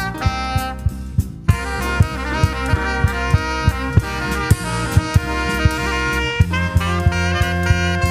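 Tenor saxophone playing a jazz solo line over a drum kit keeping a steady beat; the band thins out briefly, then comes back in fuller about a second and a half in.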